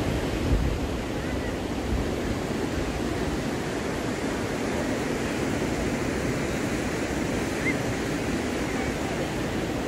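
Steady rush of surf washing onto a sandy beach, with wind rumbling on the microphone.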